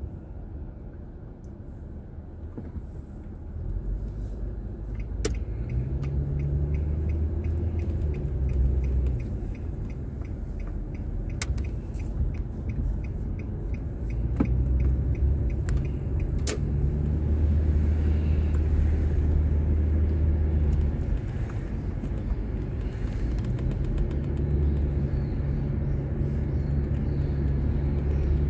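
A car driving, heard from inside through a dashboard camera: steady engine and road noise whose low hum swells and eases as the car speeds up and slows. A regular ticking runs for several seconds starting about five seconds in.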